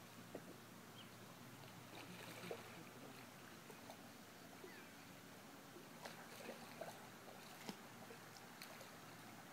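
Near silence: faint outdoor background hiss with a few soft, scattered ticks.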